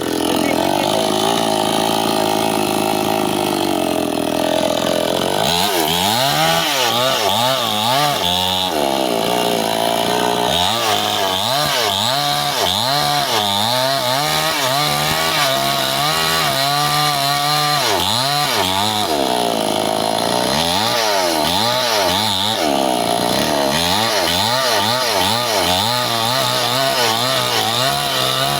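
Stihl two-stroke chainsaw cutting through bendo wood. The engine runs at a steady high pitch at first; from about five seconds in, it dips and recovers again and again as the chain bites into the log under load.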